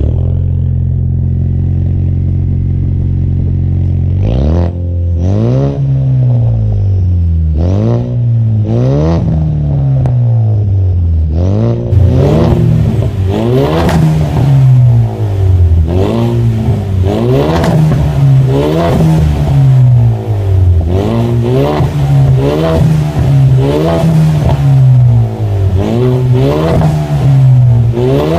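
2020 Ford Mustang's 2.3-litre turbocharged four-cylinder engine running through a full turboback exhaust. It idles steadily for about four seconds, then is revved in repeated quick blips, each rising and falling in pitch, which come faster and louder from about twelve seconds in.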